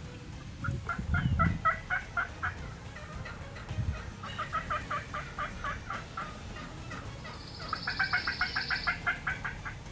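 Wild turkey gobblers gobbling three times, each a rapid rattling gobble of about one and a half to two seconds.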